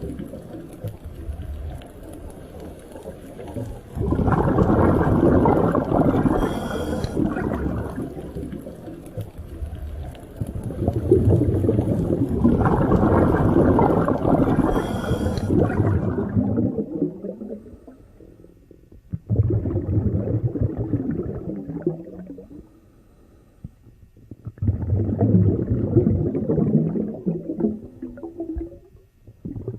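Underwater rumbling and gurgling, like water and bubbles churning against the hydrophone, coming in four surges of a few seconds each with quieter lulls between.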